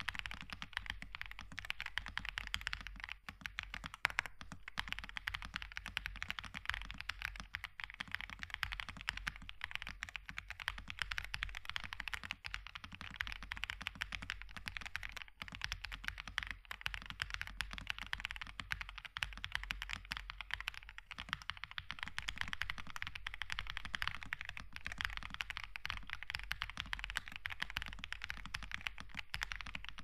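Continuous, fast typing on a Royal Kludge RK M87 mechanical keyboard in its stock, unmodified form: a dense, unbroken run of keystroke clacks.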